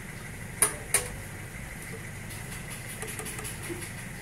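Two sharp metal knocks less than a second apart as metal paint cans are set down and picked up, followed later by a few faint taps. A steady low machine hum runs underneath.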